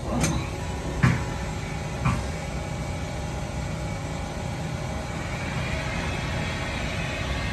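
Haas EC-1600 horizontal machining center running, its spindle brought up to about 2,000 rpm while the axes move, giving a steady machine noise. Three sharp knocks come in the first two seconds.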